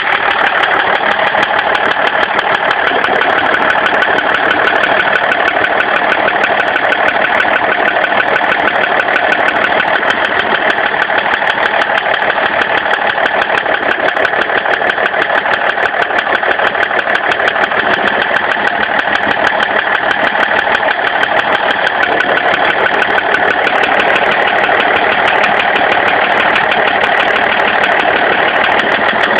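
BMW 530d diesel straight-six engine running steadily with a rapid, regular knock: a worn connecting-rod bearing shell on cylinder 4.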